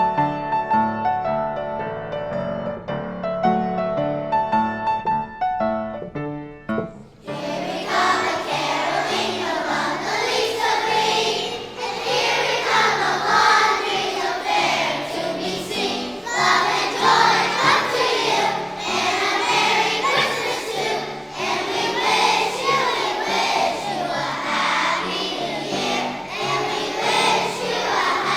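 Piano introduction, then about seven seconds in a chorus of young children starts singing a holiday song with the piano accompanying.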